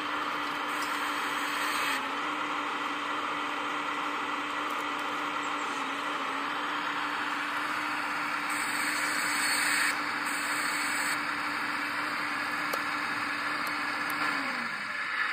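1/14-scale RC hydraulic excavator running, its pump giving a steady hum over a broad hiss, with slight brief dips as the arm works. Near the end the hum slides down in pitch as the pump slows.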